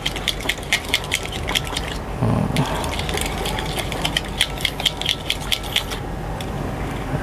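Metal spoon clinking and scraping against a glass bowl while beating a raw egg mixture, quick strokes about four a second, with short pauses about two seconds in and near the end.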